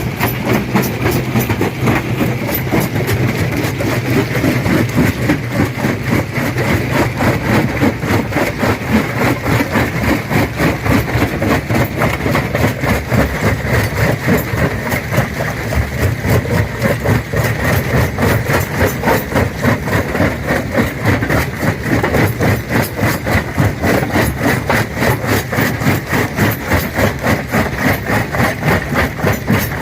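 Stone crusher running and crushing rock, a steady loud machine sound with a rapid, regular pulsing rhythm.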